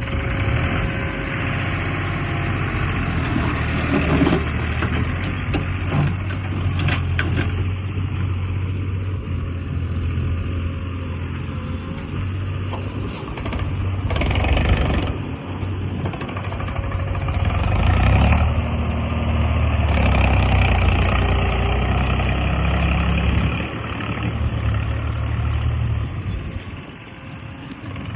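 Heavy diesel machinery engine running, its speed rising and falling, loudest a little past halfway and easing off near the end.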